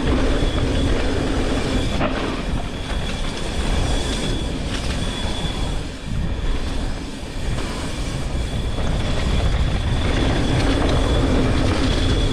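Mountain bike descending a dirt trail, heard from the rider's own GoPro: a steady rush of wind on the microphone and tyres rolling over the ground, with the bike rattling and a sharp knock about two seconds in.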